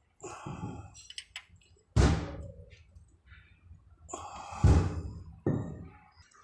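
A series of heavy clunks and knocks with lighter clattering between them; the loudest come about two seconds in and twice near the end, each dying away quickly.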